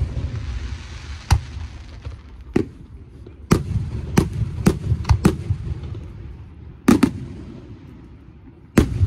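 Aerial firework shells bursting: about nine sharp bangs, with a quick run of five in the middle, each followed by a low rolling echo and faint crackling between.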